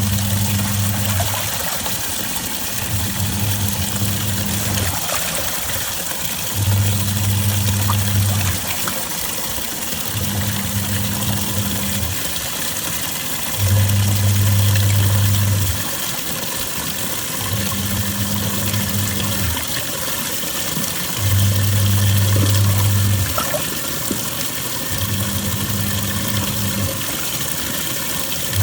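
Twin-tub washing machine in its wash cycle: the motor hums in bursts of about two seconds with short pauses between, about eight times, as the pulsator turns one way and then the other. Water sloshes steadily throughout.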